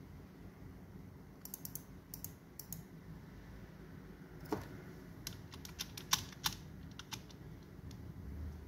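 Computer keyboard keys tapped in short irregular runs of a few clicks each, over a low steady hum.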